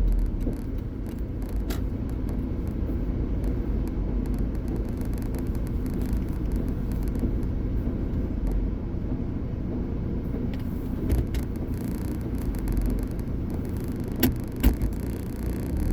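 Car running, heard from inside: steady low road and engine rumble, with a few short knocks or clicks, two close together near the end.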